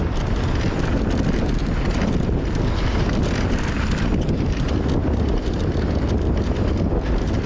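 Steady wind rush on the microphone over the rumble of mountain-bike tyres rolling fast on a dirt trail, with light, frequent rattling from the bike.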